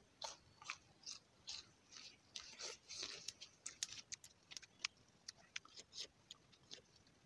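Faint, crisp crunching of a raw green plant stem being bitten and chewed, about two to three crunches a second, most of them near the middle.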